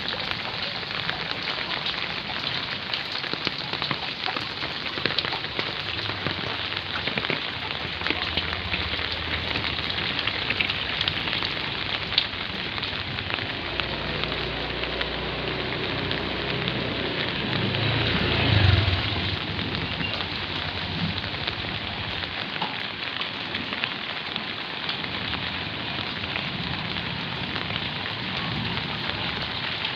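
Rain falling steadily in a hiss, with a low rumble that swells and fades a little past the middle.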